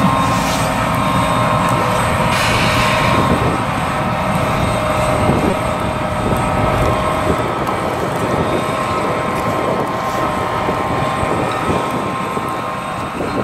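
Ropa Tiger 6 self-propelled sugar beet harvester at work: a steady diesel engine drone with several steady whining tones over it.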